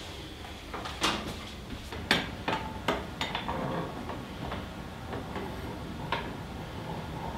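Folding steel shelf bracket with a wooden top being folded down against the wall: a run of sharp metal clanks and knocks from its hinged arms, most in the first half, then another single knock about six seconds in.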